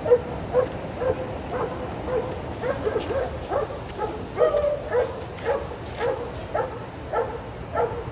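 A dog barking repeatedly, about two barks a second, over steady outdoor background noise.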